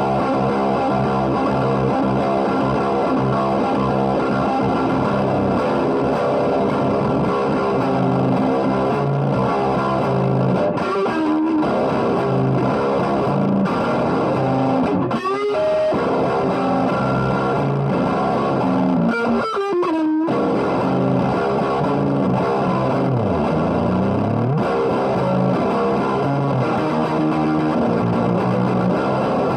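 Distorted electric guitar playing through an MXR Dynacomp Mini compressor, wah, whammy pedal and SansAmp Classic. Several quick pitch slides are scattered through the playing, and about three quarters of the way in one swoop dives low and climbs back up.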